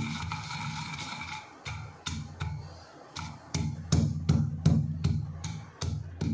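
A wooden pestle pounding almonds and seeds in a stone mortar, about three knocks a second, with a steady low hum behind.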